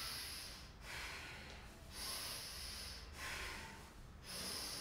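A person's slow, audible breathing, alternating inhales and exhales, about five breaths each lasting roughly a second. This is paced yogic breathing that goes with the butterfly-pose stretch: inhaling up, then exhaling to press the knees further down.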